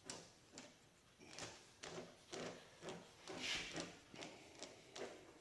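New steel baler chain being handled and laid out. The links clink and rattle in a string of irregular faint clicks, the loudest about three and a half seconds in.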